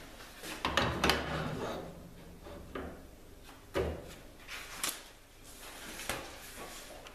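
Metallic clunks and knocks as a heavy 8-inch grinder wheel is fitted onto the grinder's spindle by hand. A burst of knocks comes about a second in, then three single sharp knocks spaced about a second apart.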